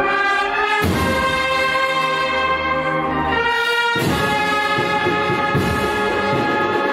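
Processional marching band of brass and percussion (an agrupación musical) playing a procession march: full, held brass chords that change about a second in and again about four seconds in, with drum strokes joining after the second change.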